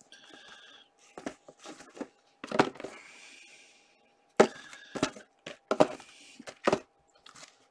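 Sealed cardboard hockey card hobby boxes being handled and set down on a table, making about half a dozen sharp knocks and thuds as they are stacked.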